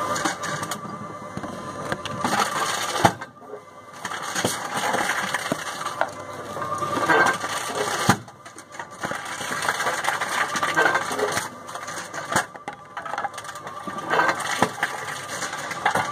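Reverse vending machine taking in plastic deposit bottles one after another. Each bottle clatters and rattles on the motor-driven rollers, then the noise dips briefly before the next, about every four seconds.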